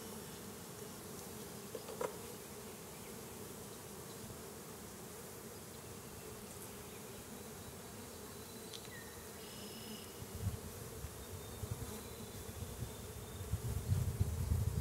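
Steady hum of a mass of honeybees swarming over an opened hive and its lifted frames. One sharp click comes about two seconds in, and low rumbling handling noises build up over the last few seconds.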